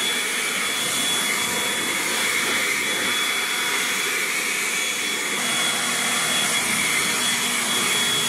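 Ryobi cordless blower running steadily at full speed, a rushing air noise with a high whine, blowing dust and debris out of a car's engine bay.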